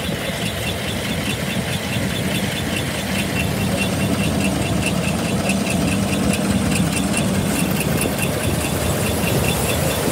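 John Deere combine harvester's engine running steadily, with a light regular ticking about four times a second over the engine's drone.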